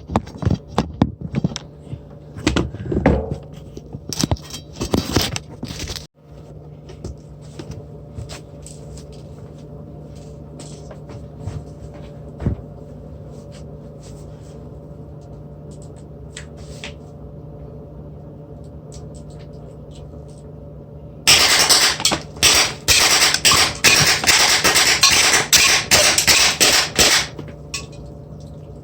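Drozd BB gun firing: a string of shots in the first few seconds, scattered single shots, then a long rapid burst of shots about twenty seconds in that lasts several seconds.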